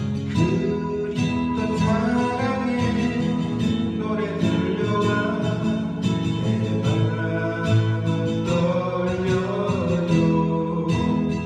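A singer's voice holding and gliding through long sung notes over guitar-led accompaniment.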